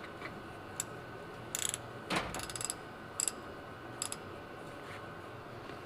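Hand-tool clicks: short runs of ratchet-like clicking and single sharp metal clicks, with one duller knock about two seconds in.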